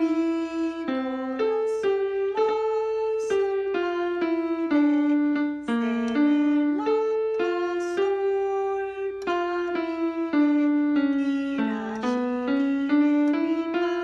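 Yamaha PSR-175 portable keyboard in its piano voice playing a slow right-hand melody, one note at a time, rising and falling. Faint clicks of long fingernails on the keys come with the note attacks.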